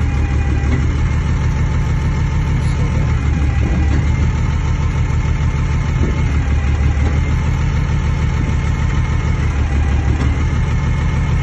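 Kalmar DCE 120-6 heavy forklift's diesel engine idling steadily with a loud, even low hum.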